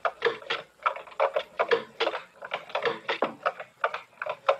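Keystrokes on a TRS-80 Model I keyboard: a quick, uneven run of clacking key presses, several a second, typing a question into BASIC.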